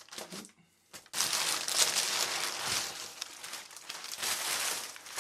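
Crumpled brown kraft packing paper crinkling and rustling as it is pulled out of a cardboard box, a dense, continuous crackle that starts after a brief lull about a second in.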